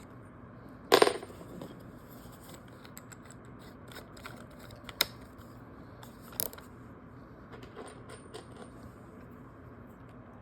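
Small metal clinks and clicks from handling a screwdriver bit: one loud ringing clink about a second in, then a few sharp single clicks around the middle.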